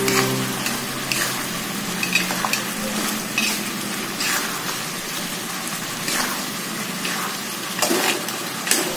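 Lobsters in a thick oyster-sauce gravy sizzling in a wok while a metal spatula stirs and bastes them, with irregular scrapes and knocks of the spatula against the pan.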